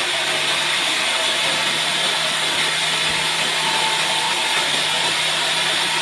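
Sawmill band saw cutting through a log as it is pushed along the blade: a steady, even hiss of cutting over the low hum of the running machine.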